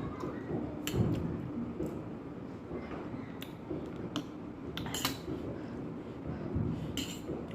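Eating noodles from a dish: several sharp clicks of a utensil against the bowl or plate over a low, murky background of handling noise.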